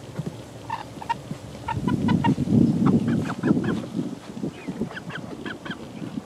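Young 11-week-old chickens making many short, repeated calls. A louder stretch of rustling noise runs through the middle.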